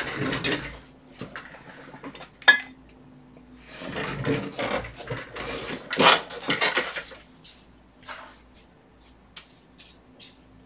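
Art supplies being picked up and set down on a desk: an irregular run of clinks, knocks and rustles of small hard objects. The loudest knocks come about two and a half and six seconds in, and it thins to a few light ticks near the end.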